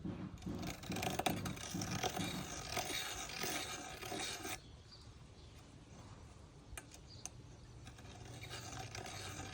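Deburring tool scraping around the freshly cut end of an aluminum handlebar tube, shaving off the burr left by the tube cutter. It stops about four and a half seconds in, with a couple of light clicks in the pause, and starts again near the end.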